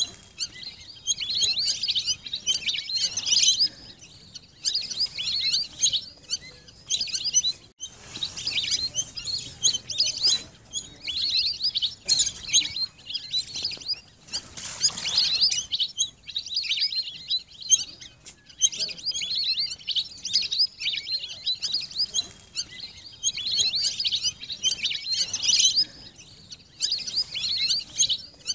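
Flock of lesser whistling ducks calling: high, thin whistled notes in dense overlapping bursts of one to two seconds, repeating with short gaps.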